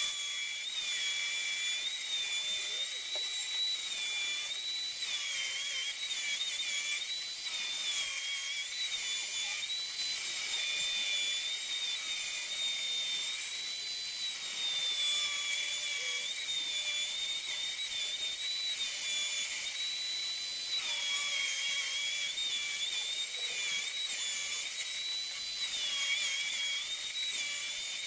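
Small benchtop table saw running, its motor whining steadily while boards are fed through the blade to cut 45° mitres. The whine dips slightly in pitch several times as the blade takes the wood.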